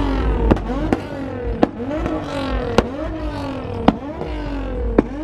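Nissan 350Z's V6 engine revved over and over in quick blips, its pitch climbing each time, with a sharp crack from the exhaust about once a second.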